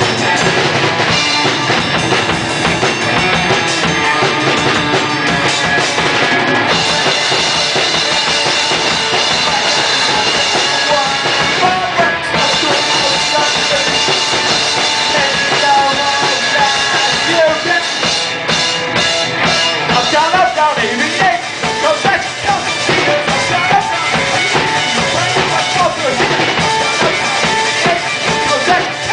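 Live band playing a song at full volume, the drum kit prominent with bass drum, snare and rimshots driving a steady beat.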